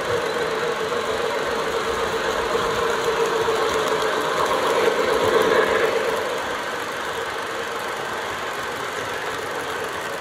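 O gauge model freight train rolling past on three-rail track, a steady mechanical running noise with a hum that builds to a peak about five seconds in as the boxcars go by, then eases off.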